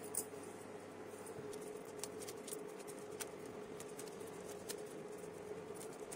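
Cauliflower florets being snapped off the head by hand, faint irregular small snaps and crackles, over a steady low hum.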